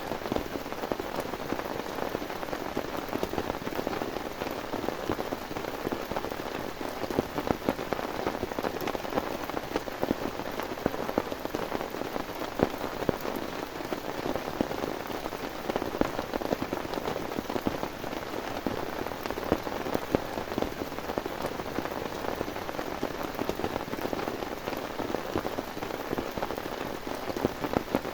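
Heavy rain falling steadily, a dense hiss with many individual drops tapping on a surface close by.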